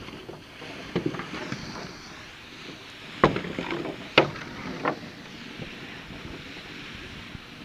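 Seine net and its float line paying out over the edge of a moving boat into the river: a steady rush of water and slipping mesh, with a few sharp knocks and slaps as floats and rope go over the side, the loudest two about three and four seconds in.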